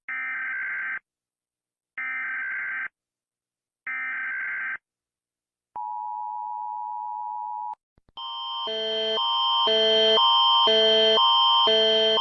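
Emergency Alert System alarm: three buzzy digital data bursts of about a second each, a second apart, then a steady attention tone for about two seconds. About eight seconds in, a different, louder alert begins: a two-note chime alternating about twice a second over a steady high tone.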